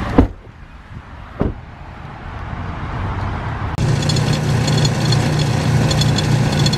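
Gas-station air pump running and air hissing through the hose into a tyre as the chuck is held on the valve stem, starting abruptly just past halfway with a steady hum. Before it, two sharp knocks.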